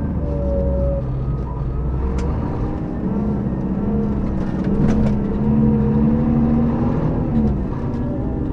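Scania K400B coach engine running under load, its note climbing a little from about three seconds in and easing off near the end. A couple of sharp clicks sound over it.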